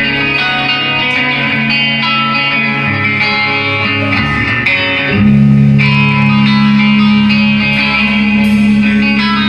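Electric guitar through an amplifier, playing sustained chords that change to a louder, lower chord about five seconds in.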